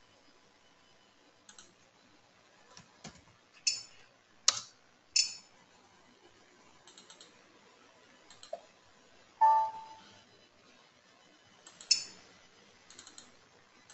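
Computer mouse clicks and keyboard key presses, scattered and irregular, with a short pitched sound about nine and a half seconds in.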